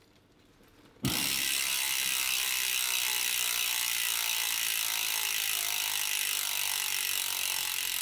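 Mountain bike's rear freehub buzzing as the rear wheel is spun by hand: a fast, even ratchet of pawl clicks that starts suddenly about a second in and slowly fades as the wheel slows.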